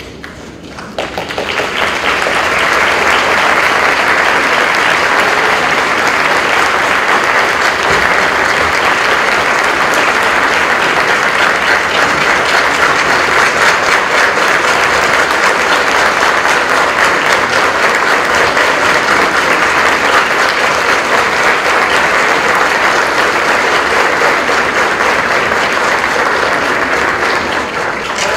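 Audience applauding a stage performance: the clapping swells up about a second in and then holds steady and dense.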